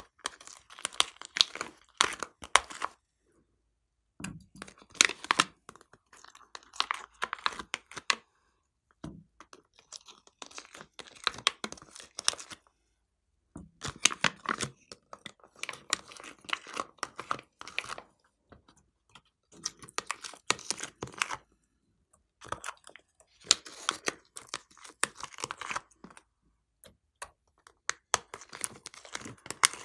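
Thin clear plastic trays crinkling and crackling as fingers squeeze slime and clay out of their cavities, in bursts of a few seconds with short silent gaps between.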